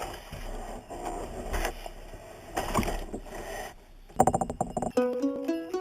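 Kayak paddle strokes dipping and splashing in the water, repeated every second or so. In the last second or two, music starts.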